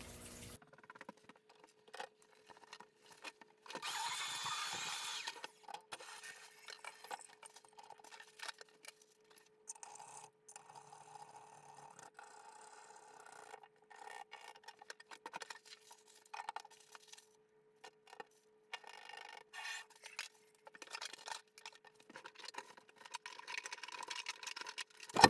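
Faint tool and handling noise from fitting a shower valve trim plate and handle, with clicks and scraping in short choppy snatches and a louder rasping stretch about four seconds in, over a faint steady hum.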